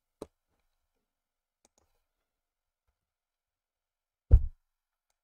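Computer mouse clicks: one just after the start, two faint ones near two seconds in, and a louder click with a low thud about four seconds in.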